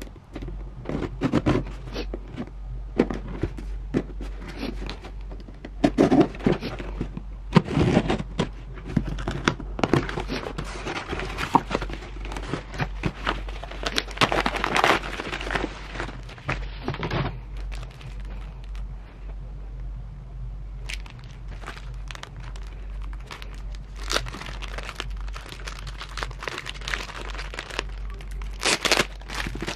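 A cardboard parcel being opened: scissors cutting packing tape, then tissue paper and plastic wrapping rustling and crinkling as a small item is unwrapped, with scattered taps and clicks. The handling is busiest in the first half and sparser later, over a low steady hum.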